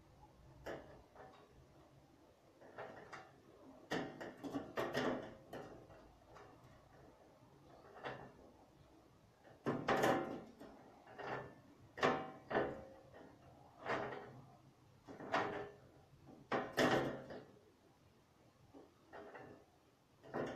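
Irregular knocks and clatters of things being handled and set down, a dozen or so, some with a short ring, the loudest in the second half.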